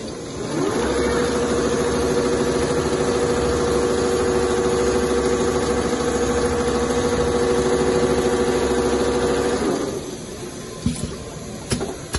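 Two-head Richpeace CNC pattern sewing machine stitching leather: its drive rises in pitch about half a second in, runs steady at speed, then stops about ten seconds in, followed by a few sharp clicks.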